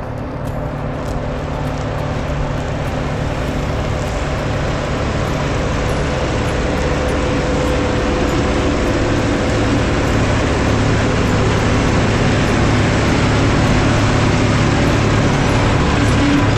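Massey Ferguson 3060 tractor's diesel engine running steadily while pulling a harrow through the soil, growing louder as the tractor draws near and passes close.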